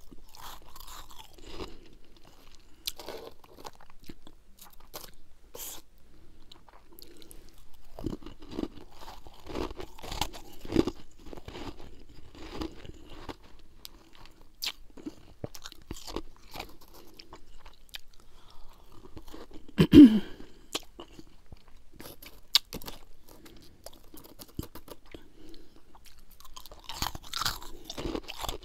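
Close-up crunching and chewing of freezer frost, soft snow-like ice eaten by the pinch: irregular crisp crunches in clusters. One louder, short low sound falling in pitch comes about two-thirds of the way through.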